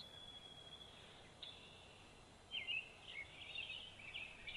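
Faint birdsong: a thin high held note in the first second or so, then warbling, chirping phrases from about two and a half seconds in.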